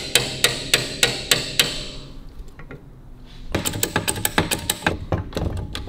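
Hammer striking a steel rod at the motorcycle engine mounting: about six sharp, ringing metal taps, about three a second. After a pause of about two seconds comes a quicker, irregular clatter of metal clicks.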